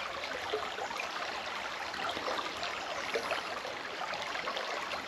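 Small mountain stream flowing: a steady, even rush of water.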